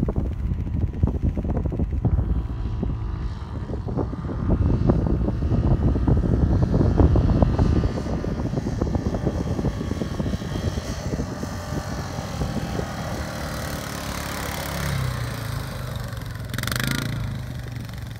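Quad bike (ATV) engine running as the quad climbs a sand dune and draws near, under heavy wind rumble on the microphone. The engine's pitch becomes clearer in the second half as the wind rumble eases.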